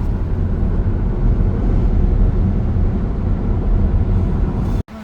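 Steady low rumble of road and engine noise heard from inside a moving car's cabin, cut off suddenly near the end.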